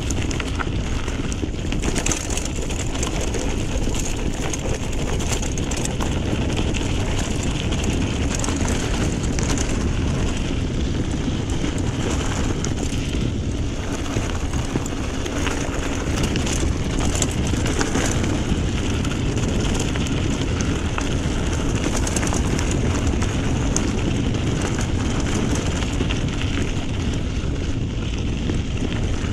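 Mountain bike being ridden over a rough dirt track: a steady rushing noise of tyres and wind, broken by many small rattles and knocks from the bike.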